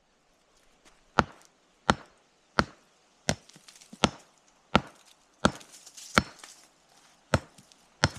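A hammer striking sandstone rock in a steady run of about ten sharp blows, roughly three every two seconds.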